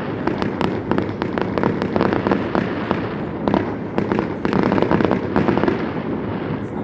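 Fireworks going off in a dense, unbroken barrage of rapid pops and crackles.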